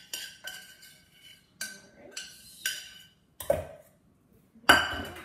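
Utensil tapping and scraping against a stainless-steel saucepan, knocking out thick cooked flour-and-milk frosting base into a metal mixing bowl: ringing metal taps about half a second apart for the first three seconds, then two heavier clanks, the second, near the end, the loudest.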